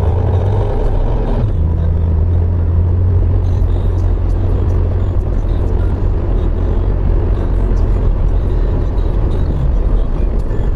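Car driving on a wet road, heard from inside the cabin: a steady low rumble of engine and tyres, with scattered faint clicks.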